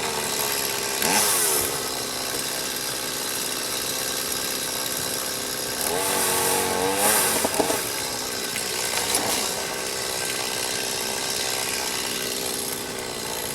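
Chainsaw engine running throughout, its pitch rising and falling as it is revved, most clearly about a second in and again around six to seven seconds in.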